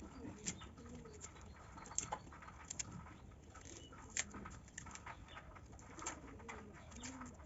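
Knife cutting an onion by hand, a few faint, irregular clicks a second or so apart, with pigeons cooing softly in the background.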